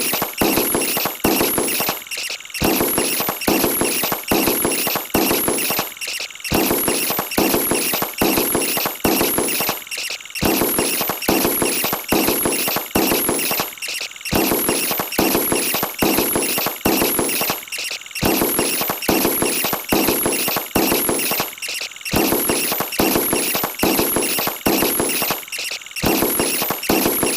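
A chaotic stream of sound effects sped up four times, rapid clicks and squeaky high sweeps piled together, repeating in a cycle about every four seconds.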